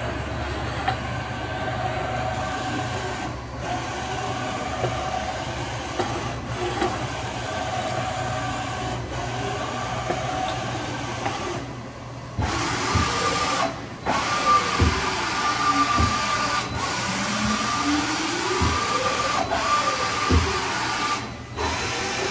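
Johnford VMC 2024 vertical machining center running, its CAT 40 spindle at the top speed of 6,000 RPM giving a steady whine. About halfway through the tones change, and the rest holds several whines that sweep up and down in pitch and a few low knocks from the machine.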